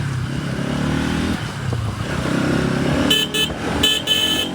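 Bajaj Pulsar NS200's single-cylinder engine running under way, its pitch climbing and dropping as it accelerates. About three seconds in, a vehicle horn sounds in four short blasts.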